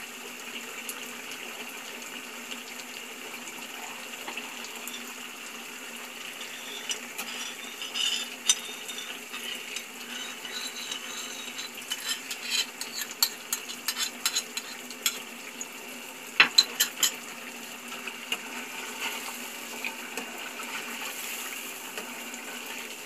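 Chicken korma sizzling in a non-stick frying pan on a gas stove, a steady hiss. A spatula stirs and knocks against the pan in a run of clicks and clinks from about seven to seventeen seconds in.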